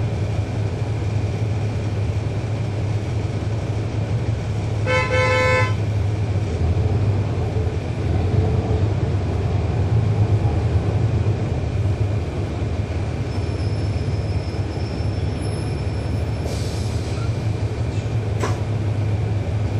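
Interior of a NABI 40-SFW transit bus under way: steady low rumble of its Cummins ISL9 diesel engine and road noise. A vehicle horn toots once, briefly, about five seconds in.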